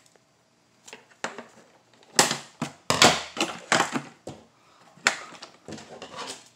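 Plastic toy packaging crackling and snapping as a boxed toy engine is worked free of it: a run of irregular sharp crackles and clicks, the loudest about two to four seconds in.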